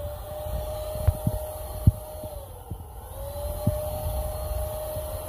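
Electric paint sprayer's motor spinning up to a steady whine, winding down about two seconds in, then spinning up again a second later and running on. Scattered sharp knocks over it.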